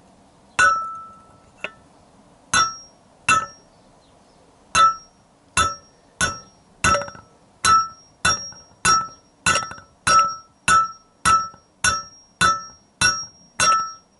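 Hammer striking a metal driving tool to seat a tapered roller bearing onto a Yamaha XJ900S Diversion's steering stem, about nineteen ringing metal-on-metal blows. A few spaced blows come first, then a steady beat of roughly two blows a second from about five seconds in. The bearing is not yet moving down the stem.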